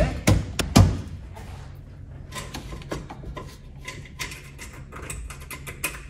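Metal clunks and clicks from a VW Beetle front seat frame and its floor rails as the seat is worked into place and its seat spring hooked on. Two sharp knocks come in the first second, then scattered light clicks and taps.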